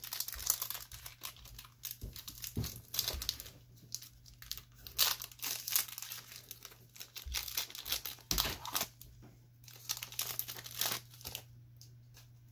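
Foil wrapper of a Pokémon trading card booster pack being torn open and crinkled by hand, a dense run of irregular crackles that thins out near the end.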